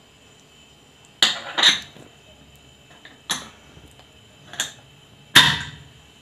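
Aluminium pressure cooker's lid and whistle weight being set in place: five sharp metal clinks with a short ring, about a second apart.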